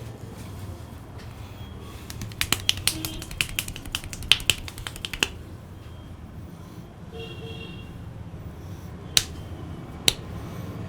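Sharp snapping clicks from a barber's head massage: a quick run of about fifteen snaps a little after the start, then two single snaps near the end.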